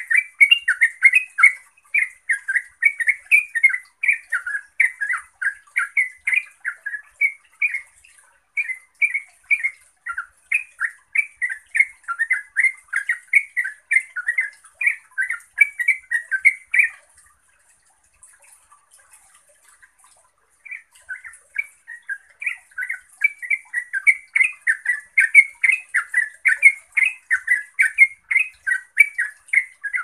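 Yellow-vented bulbul singing its fast chattering ropel song: a long, rapid string of short notes. It breaks off for about three seconds around the middle, then starts again.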